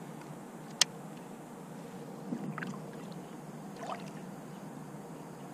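Water lapping and sloshing gently against a small boat or float, with one sharp click a little under a second in and a few softer watery sounds in the middle.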